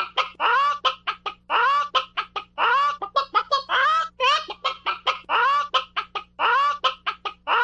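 Chicken clucking over and over: quick short clucks broken up by longer drawn-out calls that rise and fall in pitch.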